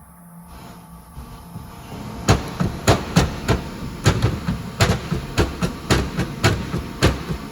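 Repeated sharp knocks, roughly three a second and unevenly spaced, starting about two seconds in: a greased short-shifter part being knocked down into its seat.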